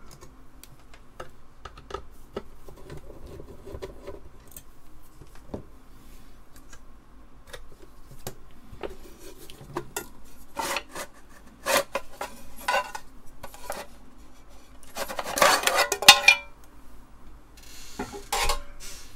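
Workbench handling of an Apple Disk II floppy drive being taken apart: scattered clicks, knocks and small metallic clinks of the drive case, screws and tools, with a louder clatter about fifteen seconds in.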